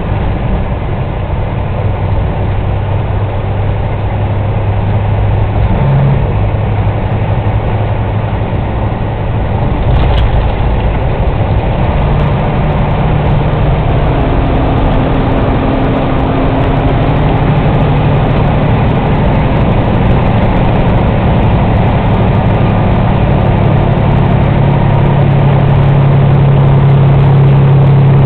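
Semi truck's diesel engine running steadily, heard from inside the cab, with its pitch stepping up about six and twelve seconds in and growing louder toward the end. A single knock about ten seconds in.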